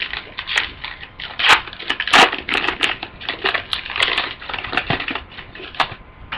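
Crinkling and crackling of a foil trading-card pack wrapper and cards being handled, in quick irregular bursts.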